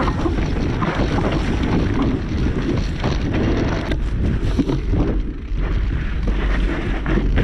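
Wind buffeting the microphone of a camera riding on a moving mountain bike, a heavy rumble with a steady run of rattles and knocks as the bike rolls over rough, rocky trail.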